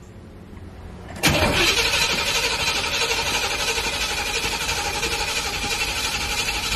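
Starter motor cranking the C4 Corvette's V8 for about six seconds, starting suddenly about a second in and cutting off abruptly, without the engine catching.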